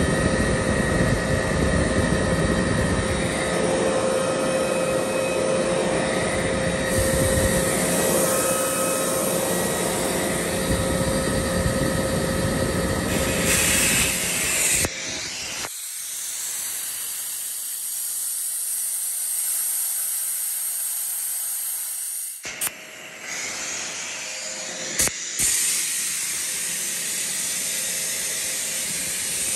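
Sullair 25 hp rotary screw air compressor running with a steady mechanical sound. About fifteen seconds in, the running sound cuts off and a loud, steady hiss of escaping air carries on, with a short break and a sharp click some seconds later.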